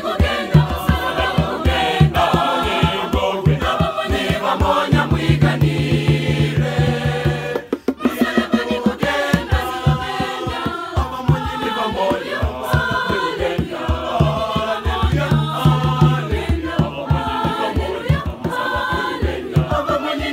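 Mixed choir singing a gospel song in Swahili/Luhya, accompanied by tall hand drums beaten by hand in a steady, fast rhythm. The music briefly drops out about eight seconds in, then carries on.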